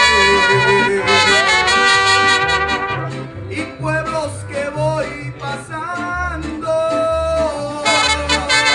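Mariachi band playing between sung verses of a ranchera: trumpets holding notes over guitar strumming, with a walking bass line below.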